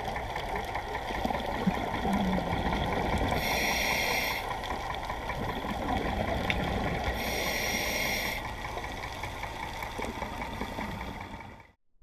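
Underwater sound of a scuba dive: a steady wash of water noise and bubbling. Two loud hissing breaths about four seconds apart, typical of a diver breathing through a regulator.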